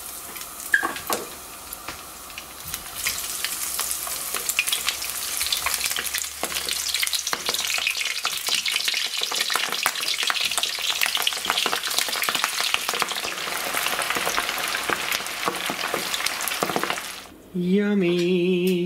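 Coconut-crumbed prawns deep frying in hot oil in a frying pan: a steady sizzle full of crackling pops, growing stronger over the first few seconds. The sizzle breaks off suddenly near the end.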